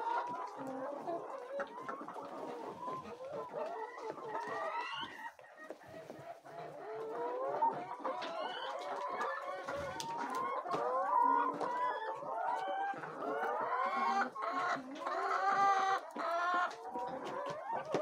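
A flock of brown laying hens clucking and calling continuously, many voices overlapping, with a few louder, longer calls near the end.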